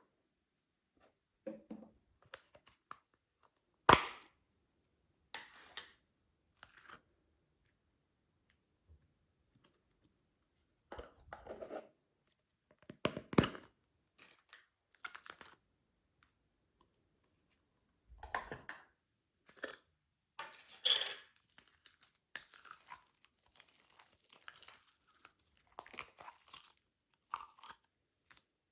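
Plastic bags being crinkled and torn open in short, separate bursts with pauses between, the sharpest snap about four seconds in.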